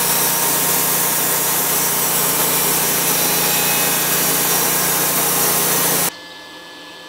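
Homemade bandsaw sawmill, driven by a 22 horsepower V-twin engine, running loud and steady, then cutting off suddenly about six seconds in. After it stops, a faint steady hum from a battery charger is left.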